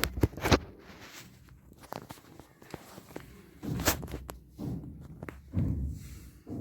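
A series of sharp knocks and clacks, with duller thuds and rumbling handling noises between them.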